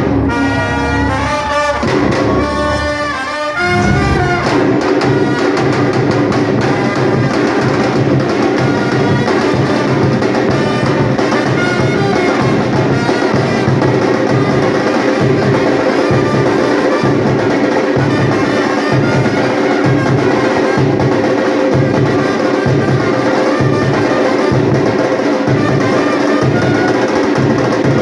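Batucada music: a brass passage for the first few seconds, then from about four seconds in a samba percussion section takes over with a fast, steady, driving beat.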